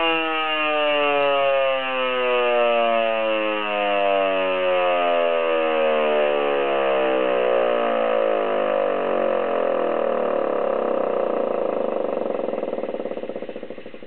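Federal Enterprises Type 2 air raid siren, run on 110 V rather than the 220 V it is wired for, winding down: a loud wail that falls steadily in pitch and fades out near the end.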